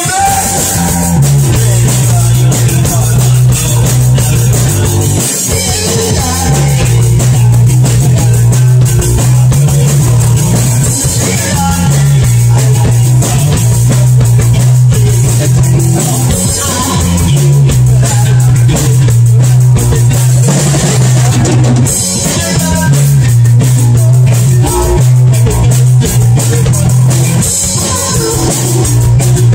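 Small rock band playing loud: a drum kit with steady cymbal and drum hits under an electric bass guitar riff that repeats about every five and a half seconds.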